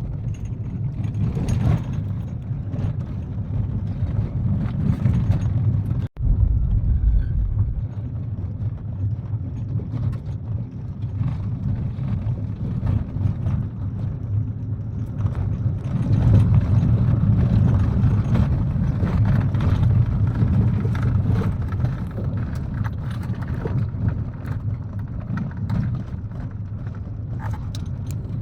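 Kia Picanto driving on a gravel road: steady low road and engine rumble with loose gravel crackling under the tyres. The sound cuts out for an instant about six seconds in and grows louder a little past halfway.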